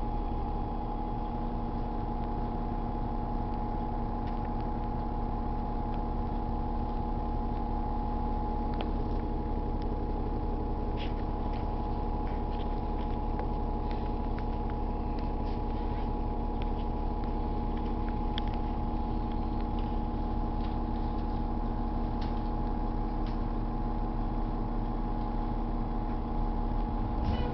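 New Flyer low-floor city bus's diesel engine idling, heard from inside the cabin: a steady hum that holds one pitch throughout, with a few faint ticks and clicks.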